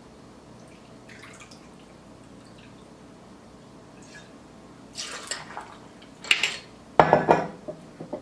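Cherry vodka poured from a bottle into a metal jigger, faint at first. Over the last few seconds come louder clinks and knocks of glass and metal as the bottle and jigger are handled and set down, the loudest about seven seconds in.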